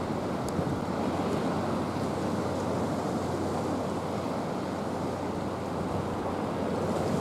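Sea surf washing steadily against the rocks and sea wall, with some wind on the microphone.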